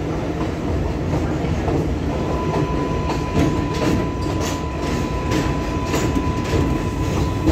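Kawasaki R188 subway car running between stations, heard from inside the car: a steady rumble of wheels on track with clicks over rail joints. A steady whine from the propulsion comes in about two seconds in and stops near the end.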